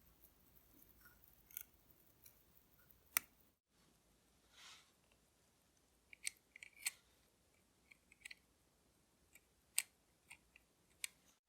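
Scattered small clicks and taps of watchmaker's tools and watch parts during reassembly, with a louder click about three seconds in and another near ten seconds, and a short hiss a little before five seconds.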